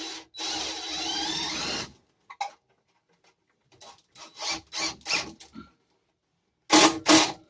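Power drill driving a screw for about a second and a half, its motor pitch rising as it runs. Then a scatter of short knocks and rattles, and two loud sharp knocks near the end.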